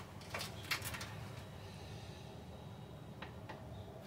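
A few faint clicks and light handling noises from hands working a plastic apple-juice jug and its cap, over a low steady room hum.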